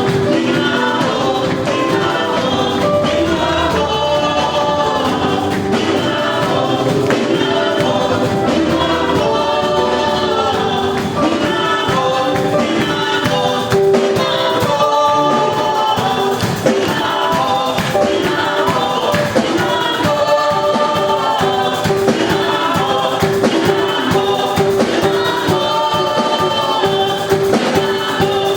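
Live gospel music: a choir singing in harmony over a band, with a long held note and steady percussion strokes.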